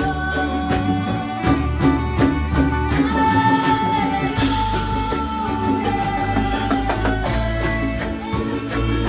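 Music: a held, slowly moving melody line over bass and a steady beat.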